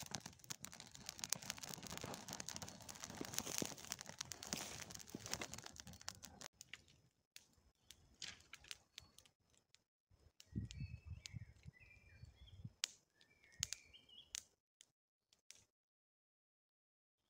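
Dry pine needles and twigs catching fire, crackling densely as the flames flare up, then dying down to scattered pops after about six seconds. A little past halfway come a brief low rumble and a few bird chirps.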